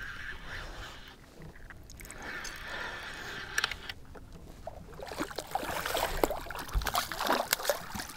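Lake water sloshing against the side of a fishing boat while a hooked lake trout is reeled in. From about halfway through it gets louder, with splashing and a run of short clicks and knocks as the fish thrashes at the surface beside the boat.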